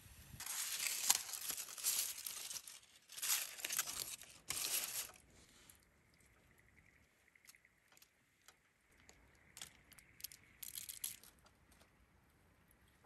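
Crinkling, rustling noise in several bursts over the first five seconds, then scattered light clicks and a brief rustle about eleven seconds in.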